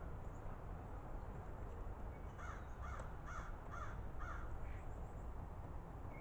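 A starling giving a quick run of about five short calls, two to three a second, about two seconds in.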